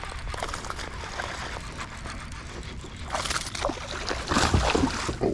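Water splashing at the surface in short bursts, starting about three seconds in and loudest near four and a half seconds, over a low wind rumble on the microphone.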